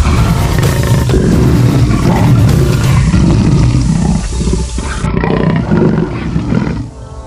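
Lions and tigers roaring and snarling, several overlapping, loud and unbroken, dropping away near the end.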